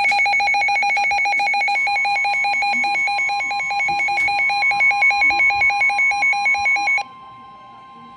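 Emergency alert attention signal: a loud electronic tone pulsing rapidly and evenly, with a steady higher tone joining about two seconds in. It cuts off abruptly about seven seconds in, leaving a faint steady tone.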